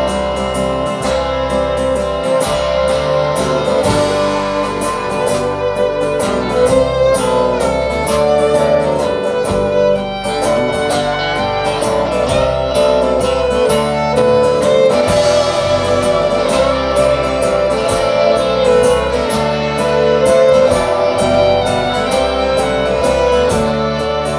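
Live acoustic band playing an instrumental break: a fiddle carries the lead over acoustic guitar and a steady low bass line.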